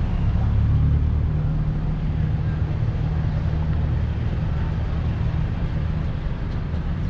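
A motor vehicle engine running steadily with street traffic noise: a constant low hum over a broad noisy rush.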